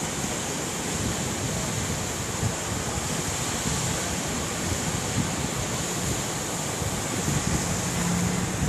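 Ocean surf washing onto the beach in a steady hiss, with wind buffeting the microphone.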